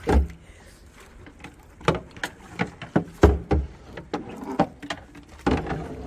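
Irregular knocks and thumps of catch and plastic fish baskets being handled on a fishing boat's deck, about a dozen of them, with a low steady hum coming in near the end.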